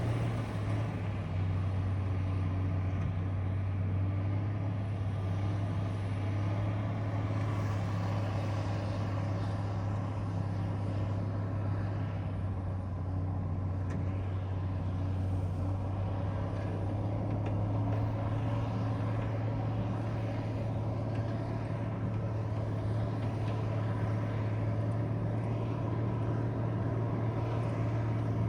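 Diesel engine of heavy snow-clearing equipment running steadily with a low drone.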